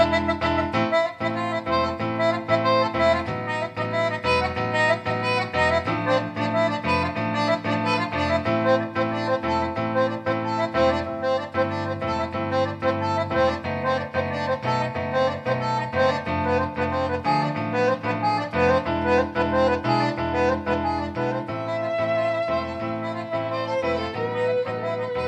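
Roland digital accordion playing a melody over a steady rhythmic bass accompaniment. A violin comes in near the end.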